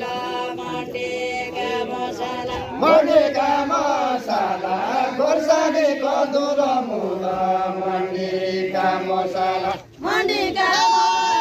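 Men singing a Deuda folk song of far-western Nepal in a chanting style, with long drawn-out held notes that slide in pitch; the singing breaks off briefly near the end and starts again.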